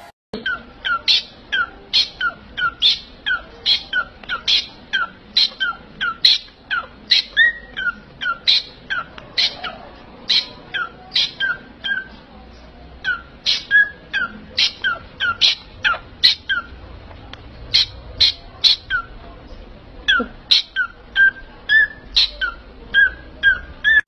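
Cockatiel calling over and over with short, sharp chirps, about two a second, pausing briefly now and then.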